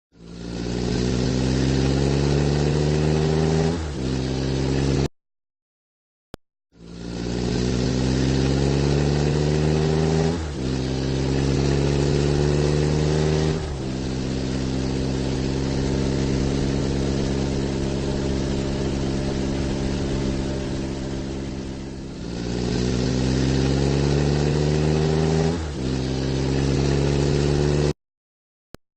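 Car engine sound effect accelerating, its pitch climbing and dropping back at each gear change. It holds a steady cruise in the middle, then climbs through the gears again. The sound cuts off abruptly twice and starts again.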